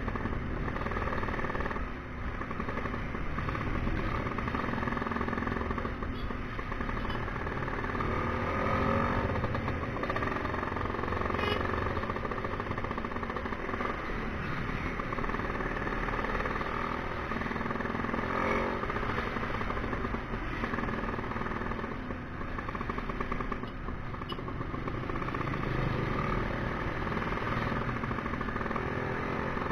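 Tuned-up Vespa scooter engine running while being ridden, its note rising and falling as the throttle is opened and eased off.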